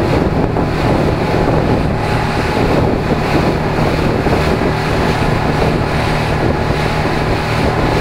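Outboard motor of a MacGregor 26-X running steadily with a low hum, driving the boat at speed. Water rushes along the hull and wind buffets the microphone.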